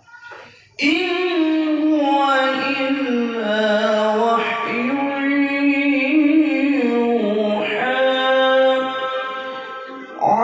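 Male Quran reciter chanting in melodic tilawah style: after a short breath about a second in, one long, drawn-out ornamented phrase whose pitch steps and wavers, with a brief break near the end before the voice resumes.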